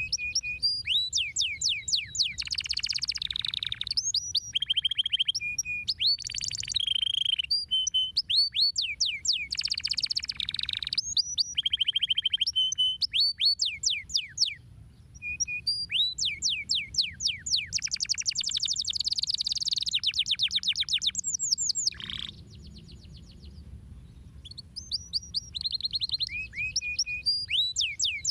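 Domestic canary singing: long phrases of rapid trills, each built of quickly repeated high, downward-sweeping notes, with a short pause of a couple of seconds near the end.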